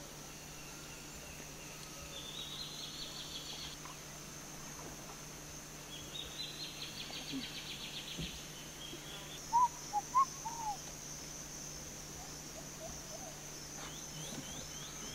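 Amazon rainforest dawn chorus: a steady high insect drone, with two spells of rapid pulsed trilling calls and, about two-thirds of the way in, a few short, louder hooting notes from a bird. A faint low hum runs underneath.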